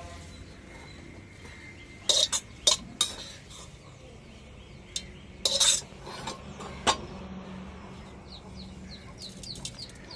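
Metal kitchenware clinking: a few sharp clinks and clatters about two seconds in, and more around five and a half to seven seconds, between stretches of low background noise.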